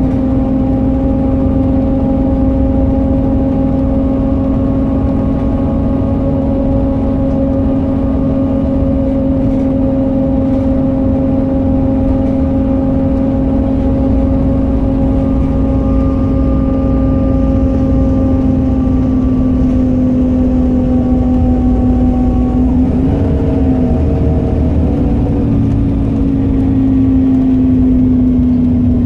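Volvo B7RLE bus with ZF automatic gearbox heard from inside the cabin while driving: a steady drivetrain whine over the engine and road rumble. The whine wavers briefly about three-quarters of the way through, then settles a little lower.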